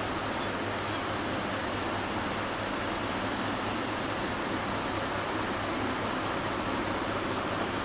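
Steady even hiss with a faint low hum underneath, unchanging throughout: background noise with no distinct events.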